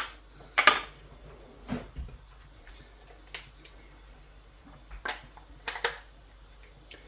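Kitchen utensils clinking and knocking against cookware: a series of separate short clinks, the loudest one under a second in.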